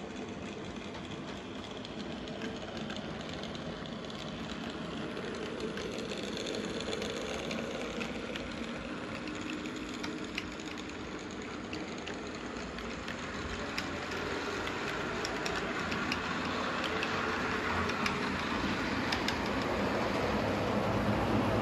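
HO scale model train running on the layout's track: a steady rolling and motor hum with scattered small clicks, slowly growing louder toward the end.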